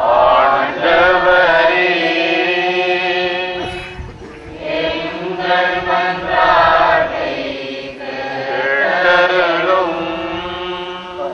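Voices chanting the sung Tamil response to a petition in the prayers of the faithful at a Catholic Mass: a slow refrain in three long phrases with drawn-out notes.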